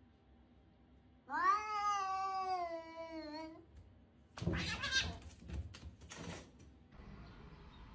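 Domestic cat yowling: one long, wavering, drawn-out call lasting about two seconds, typical of a cat warning off another in a standoff. About a second later comes a short, noisy scuffle as the cats swat at each other.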